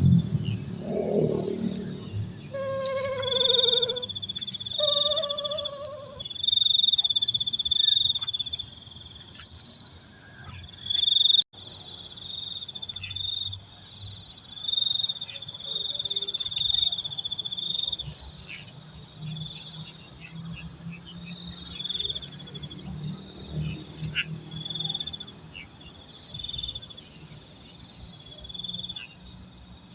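A chorus of crickets and other insects chirping steadily, with a high-pitched continuous buzz and repeated pulsed trills. About three and five seconds in, two short pitched calls stand out over the chorus.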